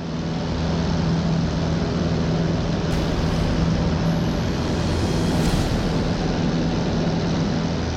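Light propeller aircraft in flight: a steady piston-engine and propeller drone with a low hum under heavy wind rush.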